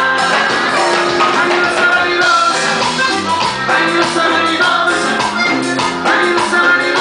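Tejano band playing live and loud, with a male lead voice singing over drums, guitar and keyboard.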